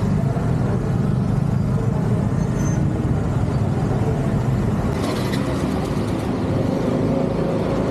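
Traffic noise heard from a moving scooter in dense traffic: a steady low rumble of engines and road noise, with a brief hiss about five seconds in.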